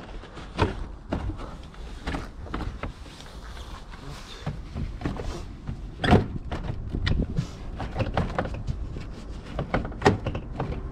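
Plastic knocks, clicks and thuds as a BMW G30 5 Series front bumper cover is worked loose and pulled off the car by hand, the sharpest knocks about half a second, six seconds and ten seconds in.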